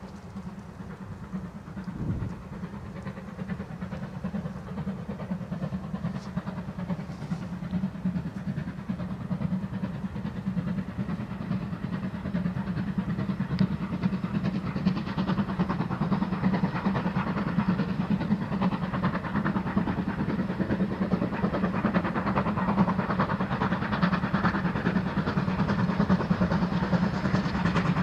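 Steam locomotive hauling a train of coaches, working steadily and growing louder as it approaches, with one low thump about two seconds in.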